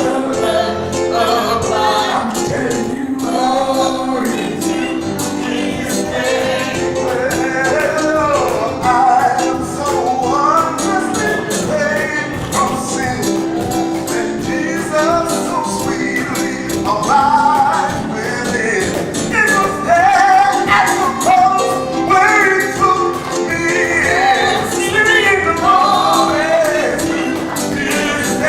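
Gospel worship song: several voices singing over steady instrumental accompaniment.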